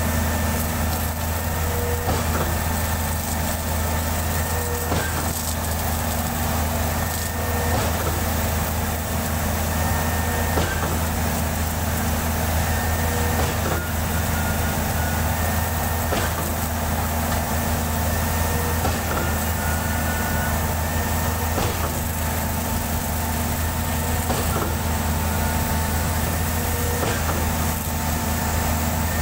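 Truck-mounted concrete pump's engine running steadily with a low hum, with occasional knocks from the machinery.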